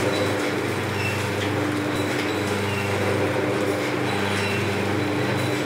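Vertical form-fill-seal pouch packing machine running: a steady motor hum with faint short high ticks repeating roughly once a second as it cycles.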